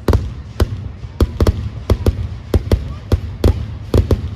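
Fireworks display: a rapid, uneven string of sharp bangs, about three a second, over a steady low rumble.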